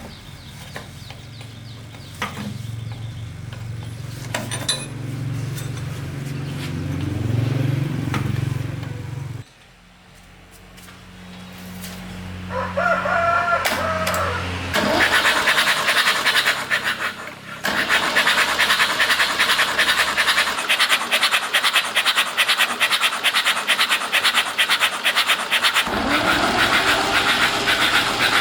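An engine running with a fast, even rattle through the second half. It is preceded by a low steady hum that cuts off about a third of the way in, and by a brief wavering call.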